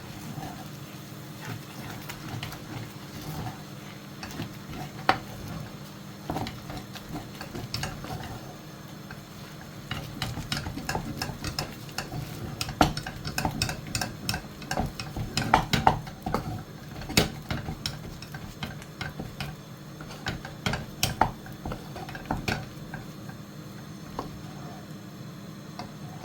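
A cooking utensil scraping and knocking against a pot as thick cooked oat fufu dough is turned and dished out. The knocks come irregularly, growing busier through the middle, over a steady low hum.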